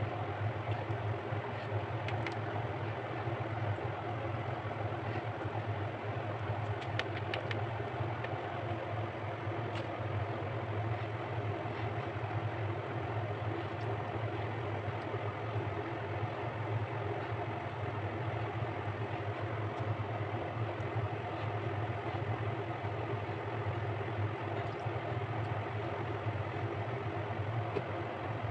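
A steady low mechanical hum, like a motor running, that holds the same level throughout, with a few faint clicks.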